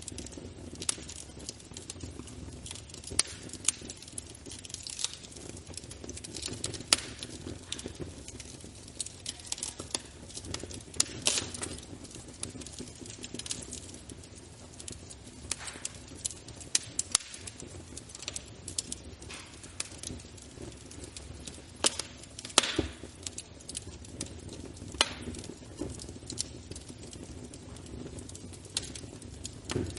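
Wood fire burning in a fireplace, crackling with irregular sharp pops over a steady low noise of the flames, a few pops much louder than the rest.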